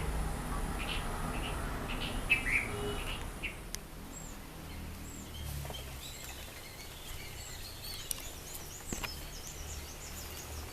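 Small songbirds calling in a garden: a few short chirps in the first few seconds, then a run of high, thin twittering notes through the second half.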